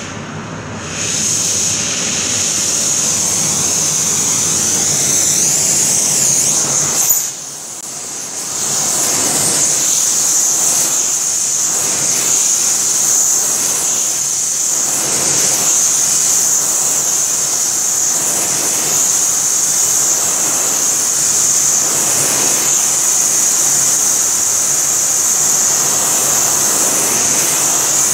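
Oxy-fuel heating torch burning with a loud, steady hiss while it heats a spot on a steel bar. The hiss drops for about a second around seven seconds in, then carries on.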